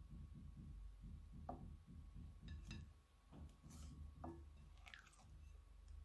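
Quiet, wet squishing of clear slime being stirred and folded with a silicone spatula in a glass bowl, soft and rhythmic in the first half, then a few sharper sticky pops and clicks.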